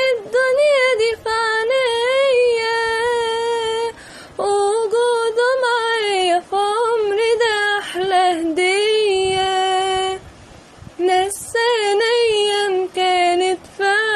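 A young female voice singing an Arabic melody solo, in long held notes with a wavering pitch, pausing briefly about four and ten seconds in.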